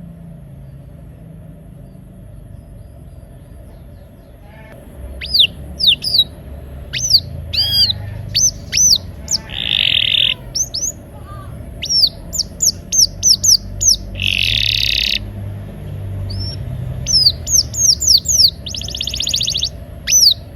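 Domestic canary singing. After a few seconds of only a low hum, it starts about five seconds in with a run of quick swooping whistled notes, broken three times by fast buzzing rolls, the rolling song canary keepers call 'ngeroll'. A steady low hum runs underneath.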